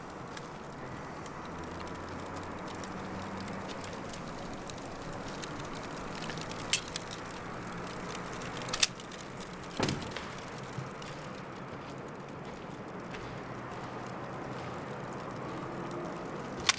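Small fires crackling over a steady hiss, with three sharp clicks about seven, nine and ten seconds in.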